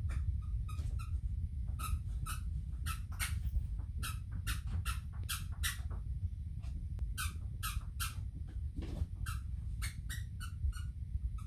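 Squeaky dog toy squeaked over and over as a puppy chews on it: a long string of short, sharp squeaks, roughly two a second and unevenly spaced.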